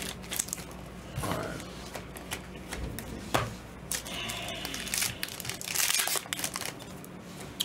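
Foil trading-card pack wrappers crinkling and tearing as gloved hands rip packs open and handle the cards, with scattered sharp crackles and clicks.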